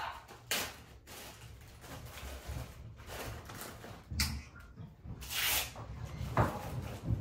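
Scattered rustles and light knocks of hands handling treats in a dog-training treat pouch, with a longer rustle about five seconds in.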